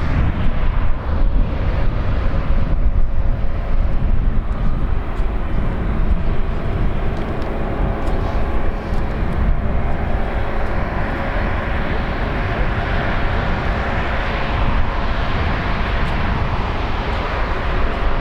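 Jet engines of an Airbus A321neo running steadily, a loud even roar with a deep rumble; the hiss grows stronger about halfway through.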